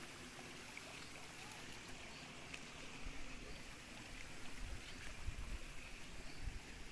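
Shallow rocky creek trickling faintly, with irregular low rumbles growing louder from about halfway through.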